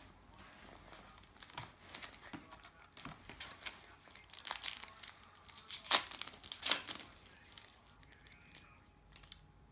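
Foil trading-card pack wrapper being torn open and crinkled, a run of sharp crackles with the loudest rips about six seconds in and again just after.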